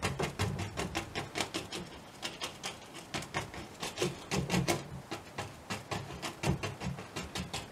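Paintbrush dabbing and scrubbing acrylic paint onto a canvas on an easel: quick, irregular taps, several a second, each with a dull thump from the canvas.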